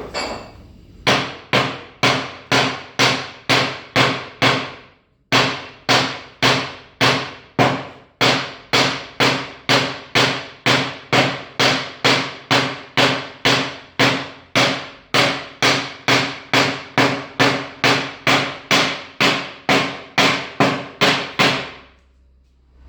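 Steady hammer blows, about two to three a second, driving a new bearing into a washing machine tub's bearing housing. Each strike rings with a metallic tone. There is a short pause about five seconds in, and the blows stop shortly before the end.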